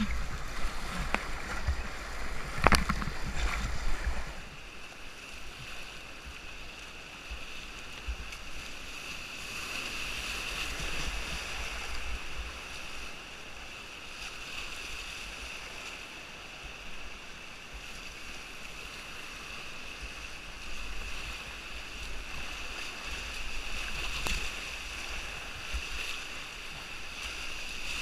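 Whitewater rapids rushing around a kayak, with loud splashes for the first four seconds or so, then a steadier rush of water.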